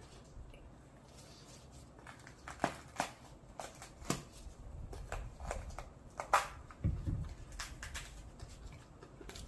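Irregular small clicks, taps and rustles of hands handling utensils and food during cooking, with a duller low knock about seven seconds in.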